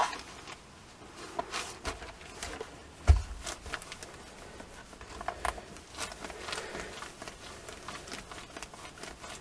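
Quiet handling noises: newspaper rustling and a dull thump about three seconds in as a clothes iron is set down, then light scuffs and clicks as the iron is pressed and moved over newspaper covering a warped plastic piece that is being heat-straightened.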